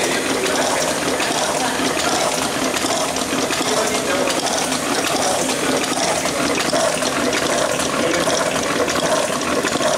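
Ballpoint pen refill assembling machine running: a steady, dense rattle of many small clicks from its feeder and mechanism.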